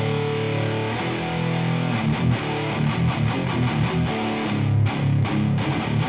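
Heavily distorted electric guitar playing a hardcore riff through a 100-watt Marshall amp head. It holds chords for the first couple of seconds, then switches to a choppy chugging rhythm with short stops.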